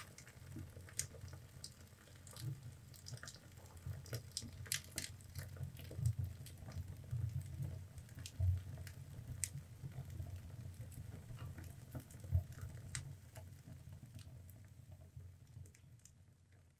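Wood fire burning in a stove's firebox, with irregular crackles and pops over a low steady rumble of the flames, fading out near the end.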